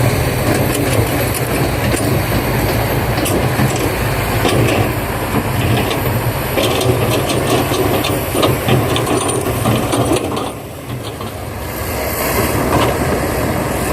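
Excavator running steadily, with scattered clicking and clattering from the machine at work. The sound eases for a moment about ten seconds in, then picks up again.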